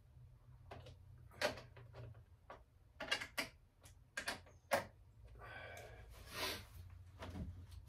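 Hand tools and metal parts clinking and knocking as they are picked up and set down, in a handful of sharp clicks, with a rustling scrape about six seconds in, over a low steady hum.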